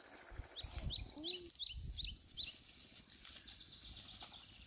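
A small bird singing a quick run of short, high chirping notes for about two seconds, starting about half a second in, over faint outdoor background noise with a few low thuds.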